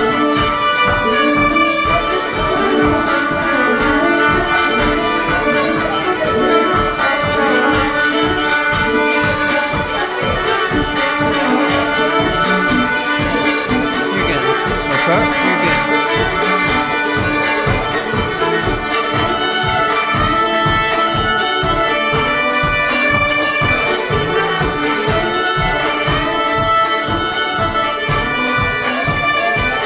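Live fiddle playing a traditional dance tune over a steady, fast rhythmic accompaniment with an even beat in the bass.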